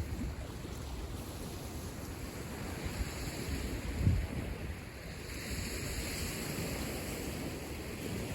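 Waves washing onto the Lake Michigan shore, with wind buffeting the microphone in a low rumble and one stronger gust about four seconds in. A wash of surf hiss swells about five seconds in.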